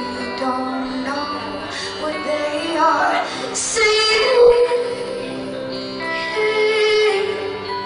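Female vocalist singing live into a handheld microphone over instrumental accompaniment, holding long notes.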